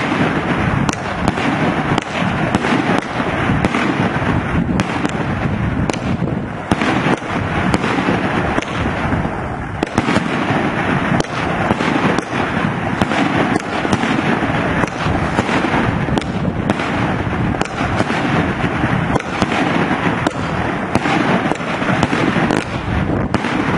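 Fireworks going off in a dense, continuous barrage: many overlapping bangs, pops and crackles with no pause.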